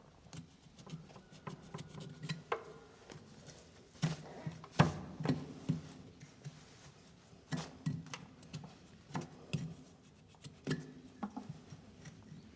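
A farrier working a horse's hoof with hand tools: irregular sharp clicks, snips and knocks, the loudest about five seconds in.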